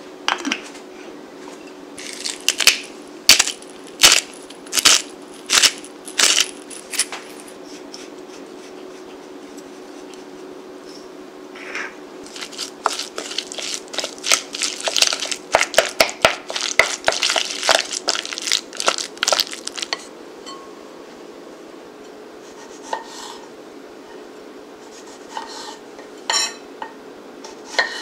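Wooden spoon stirring and mashing chopped boiled eggs with mayonnaise in a glass bowl, knocking and scraping against the glass. It starts as a series of separate sharp knocks, becomes a denser stretch of stirring about halfway through, and thins to a few knocks near the end, over a faint steady hum.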